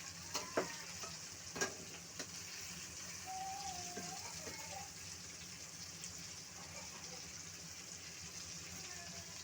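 Chicken frying in oil in a pan, a steady sizzle, with a few sharp clicks of a utensil against the pan in the first couple of seconds.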